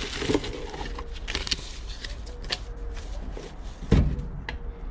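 Light handling noises on a tabletop: scattered small clicks and rustles, then a single solid knock about four seconds in as the time-switch box is handled.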